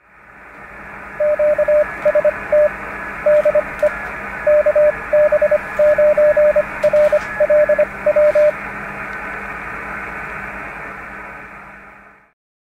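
Morse code sent as a single steady beep, keyed in dots and dashes, over a shortwave receiver's band hiss. It calls QST DE KB9RLW, a general call to all amateur stations from that callsign. The hiss fades in at the start, the code stops about two-thirds of the way through, and the hiss fades out near the end.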